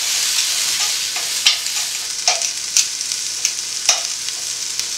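Sliced onions sizzling as they brown in oil in an enameled cast-iron Dutch oven. A metal spatula stirs them, scraping and knocking against the pot in about six sharp strokes.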